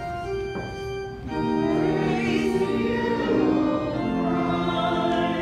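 Church music: pipe or electronic organ holding sustained chords, with voices singing along, swelling louder about a second in.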